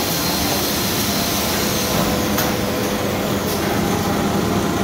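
Factory machinery running steadily: a constant hum and rush with a faint high whine held through.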